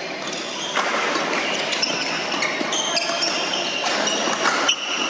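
Badminton doubles rally: sharp racket strikes on the shuttlecock and shoes squeaking on the wooden court floor as the players move, over the steady din of a busy hall.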